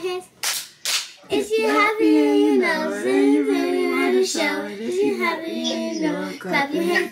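Children singing a tune in held, gliding notes, with two sharp hand claps about half a second and a second in.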